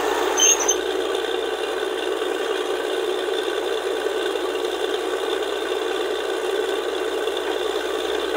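Borewell drilling rig at work: a steady rattling mechanical noise, with a brief knock about half a second in.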